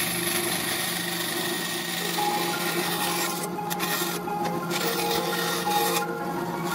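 Benchtop band saw running, its blade cutting through a 3 mm polycarbonate (Lexan) sheet with a steady hum and a rasping hiss. The cutting hiss breaks off briefly a few times as the sheet is fed and turned.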